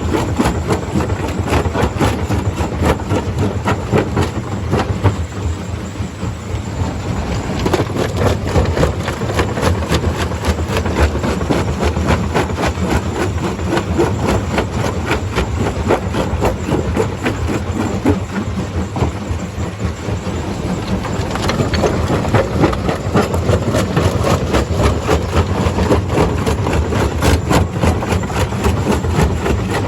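Stone crusher running under load: a steady engine drone under a dense, continuous clatter of rock being crushed and rattling through the machine.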